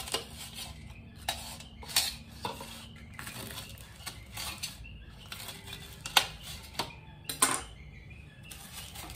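Knife cutting crisp deep-fried spring rolls on a stainless steel plate: irregular crunches and clinks as the blade meets the metal, the loudest a little past the middle.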